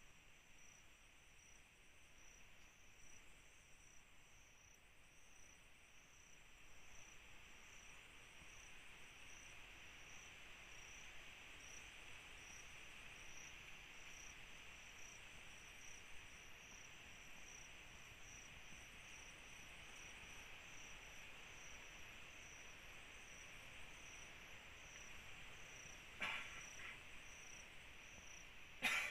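Night insect chorus: a steady high hiss of crickets with a higher chirp pulsing at an even rate over it. A couple of short, sharp sounds come near the end.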